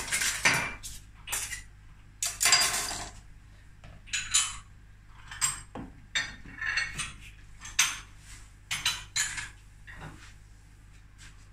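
Kitchen utensils and cookware clinking and knocking on a worktop as they are handled and set down: irregular separate knocks, with a longer scraping or rustling burst about two and a half seconds in.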